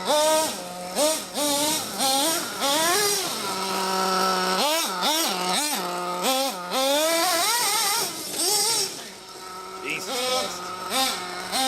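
Ofna Dominator RC truck's RB K10 nitro engine being driven, revving up and dropping back to a steady idle over and over with quick throttle blips. Near the middle there is a longer high-revving stretch.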